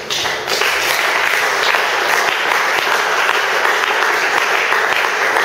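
A congregation applauding: many hands clapping, swelling up about half a second in and then holding steady.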